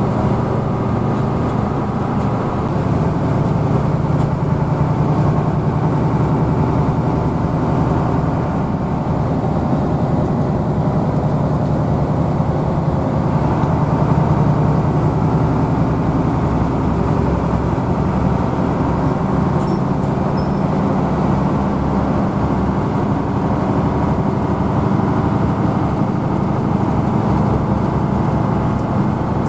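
Hino AK bus engine running steadily under road noise, a continuous drone heard from inside the moving bus.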